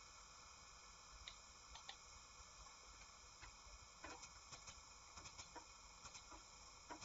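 Computer mouse clicking over faint room hiss: a few scattered light clicks, then a quicker run of clicks from about halfway through.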